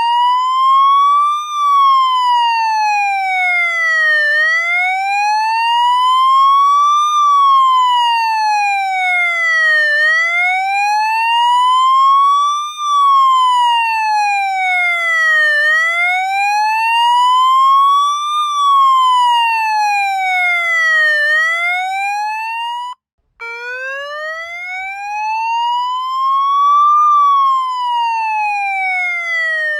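Police siren wailing, its pitch sweeping slowly up and down, one full rise and fall about every six seconds. About three quarters of the way through it cuts out for an instant and starts again from a low pitch.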